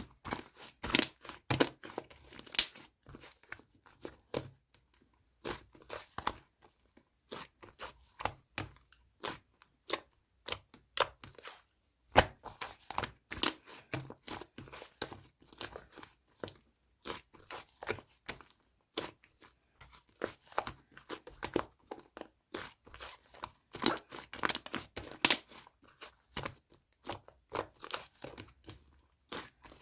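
Fondant-base slime mixed with clay being played with by hand, making irregular sticky crackles and clicking pops.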